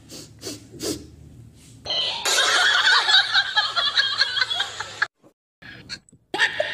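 Laughter from several voices, starting about two seconds in and lasting about three seconds before cutting off abruptly, after a couple of seconds of faint clicks and handling noise.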